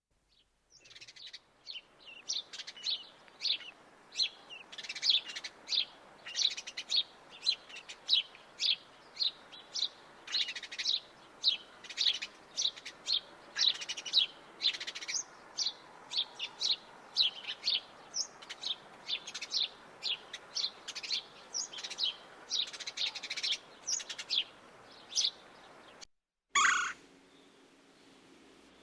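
Small birds chirping, a quick run of short high calls, two or three a second. Near the end the chirping cuts off abruptly, and one short, louder call follows.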